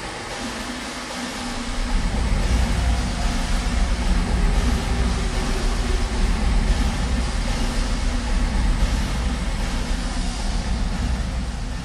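Metal lathe running with its chuck spinning: a steady machine noise with a strong low rumble, growing louder about two seconds in.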